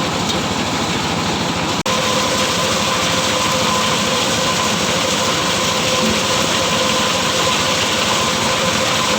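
Motorised corn sheller running steadily. The sound drops out for an instant about two seconds in, then goes on with a steady whine.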